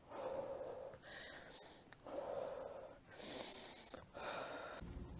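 A woman breathing heavily and fast, out of breath after a minute of jump step-ups: about five loud, rasping breaths, roughly one a second.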